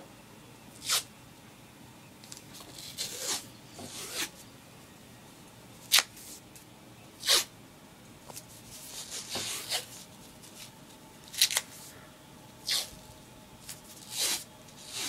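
Athletic tape being pulled off the roll in short ripping sounds, about a dozen at irregular intervals, as it is wrapped around an ankle.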